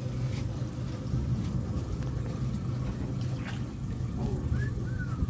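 Tour boat's engine running at idle, a steady low rumble.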